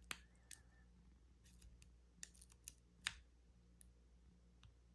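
Faint, irregular metallic clicks and ticks of a lock pick working the wafers of a wafer lockout-tagout padlock held under tension from a Z-bar tension wrench, the loudest click about three seconds in.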